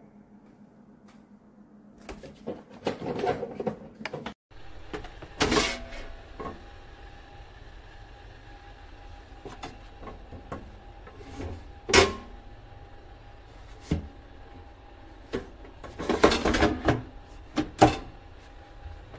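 Plastic knocks and clatters as a Tefal Easy Fry & Grill air fryer's basket drawer and grill plate are handled, in separate sharp strikes a few seconds apart with a busier cluster near the end. A faint steady hum lies underneath.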